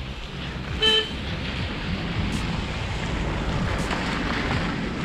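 A vehicle horn gives one short toot about a second in, over a steady low rumble.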